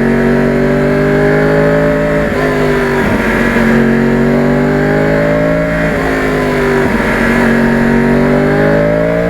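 2009 Yamaha R1 crossplane inline-four engine running under way. Its note climbs slowly, dips twice (about two and six seconds in) and climbs again.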